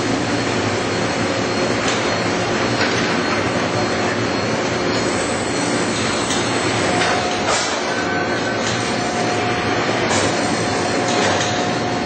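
Dahlstrom coil slitting line running as it slits sheet-metal coil into strips and rewinds them on the recoiler: a steady, loud mechanical noise with faint whining tones that come and go and a few clicks.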